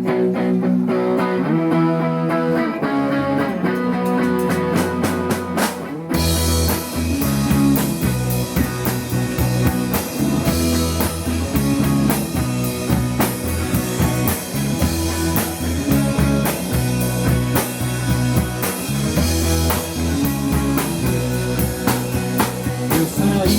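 Instrumental rock song intro: guitar opens over a light rhythm, then about six seconds in the full band comes in with bass and drums.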